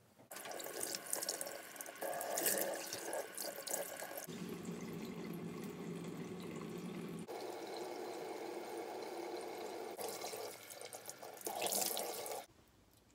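A tap runs into a bathroom sink while a face is washed and rinsed under it. The sound changes abruptly a few times and stops suddenly shortly before the end.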